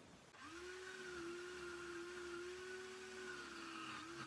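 Parkside wood lathe's electric motor starting about half a second in, rising quickly to speed and then running with a steady whine. Its pitch sags briefly near the end as the chisel meets the spinning wood and loads it.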